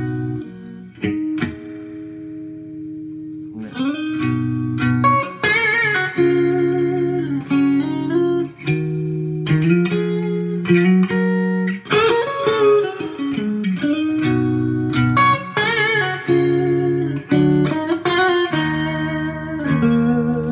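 Electric guitar played through a 1970 Dallas-Arbiter Fuzz Face with TFK BC108 transistors into an amp, in a cleaned-up, Strat-style clean tone. A few chords ring out for the first several seconds, then the playing gets busier, mixing chords with single-note lines and bent, wavering notes.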